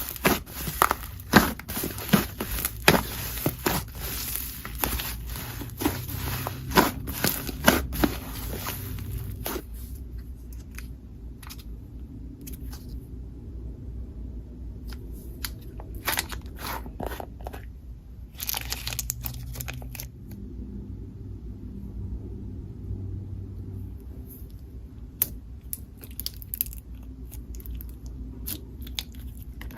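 Slime being squeezed and worked by hand, giving crackling, crunching clicks: dense for the first ten seconds or so, then sparser with a few short bursts.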